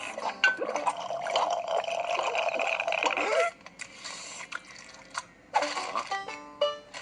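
Cartoon liquid sound effect: a gurgle lasting about three seconds that ends with a falling pitch. Light plucked background music comes back near the end.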